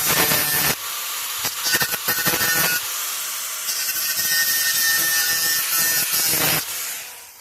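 Angle grinder working on steel pipe, a loud, continuous gritty noise whose texture changes as the disc bites. It cuts out near the end and starts to spin down.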